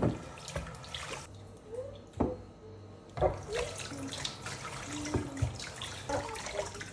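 Kitchen tap running into a sink, with repeated knocks and clinks of things being handled in it.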